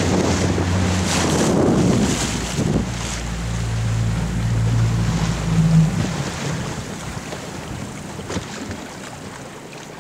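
Small boat's engine running steadily under way, with wind buffeting the microphone and water rushing past the hull. About six seconds in, the engine note drops away, leaving wind and water noise that slowly fade.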